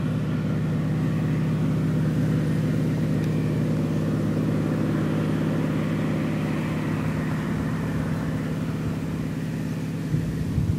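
Cessna T207's turbocharged six-cylinder engine and propeller droning steadily as the plane flies low past and climbs away, slowly fading in the later seconds.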